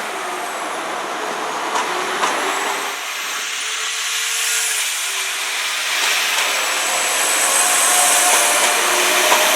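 Class 172 Turbostar diesel multiple unit on the move, a steady running hiss with engine and wheel tones that slowly grows louder over the second half.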